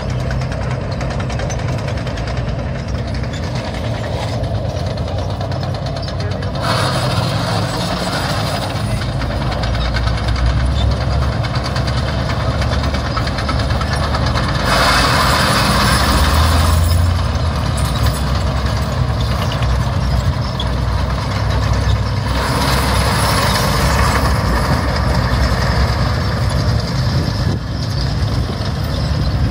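Several Second World War tanks and tracked vehicles driving past on a dirt arena, a steady engine rumble with track noise that swells louder three times as vehicles come close.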